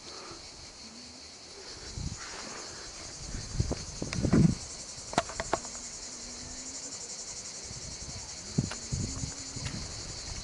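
A steady, high, finely pulsing insect chorus from the dry summer hillside, with a few close scuffs and knocks, the loudest about four seconds in.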